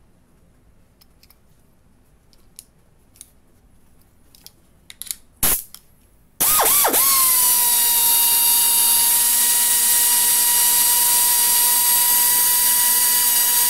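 Pneumatic angle die grinder (Golconda GS-1542AX, 1/4-inch collet, rated 18,000 rpm free speed) being handled with a few small clicks, then a single sharp burst about five seconds in. About a second later it starts up and runs unloaded at free speed with a loud, steady high-pitched whine.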